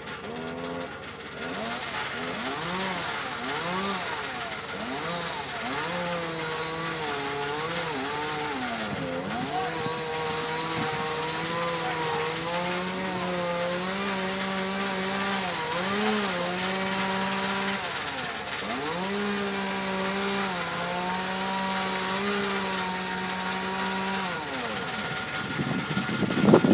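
Two-stroke gasoline chainsaw running under load while cutting into a tree trunk, its pitch sagging and climbing again as the chain bites and eases. The saw cuts out near the end, followed by a loud burst of noise.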